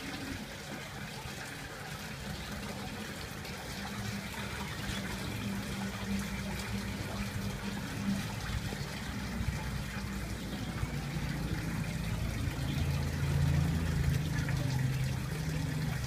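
Water trickling and splashing in an aquarium tank, over the low steady hum of a submersible water pump; the hum grows stronger in the second half.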